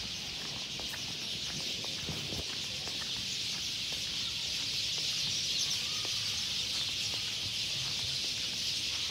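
Steady, high-pitched chorus of insects in the garden trees, unbroken throughout, with a few faint footsteps on stone paving about two seconds in.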